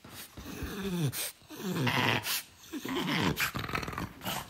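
A French bulldog grumbling at the bedside in three drawn-out, growly moans, each falling in pitch, asking to be let up onto the bed.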